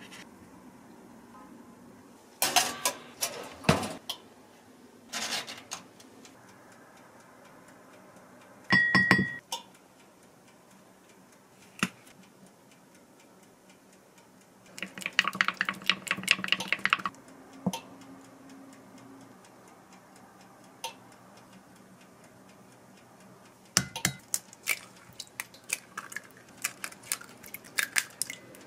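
Kitchen prep handling sounds around a glass measuring cup: scattered knocks and clinks, a short squeeze-bottle sputter of sriracha about nine seconds in, and a flurry of quick clinks in the middle. Near the end, eggs are tapped and cracked against the glass cup in a busy series of clicks.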